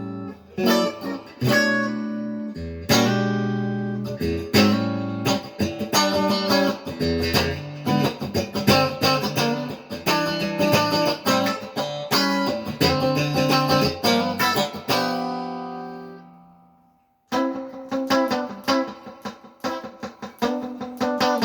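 1965 Fender Stratocaster electric guitar played with a clean tone through a Roland Cube 40XL amp: picked chords and single notes. About fifteen seconds in, a chord rings out and fades to silence, and quick picking starts again about two seconds later.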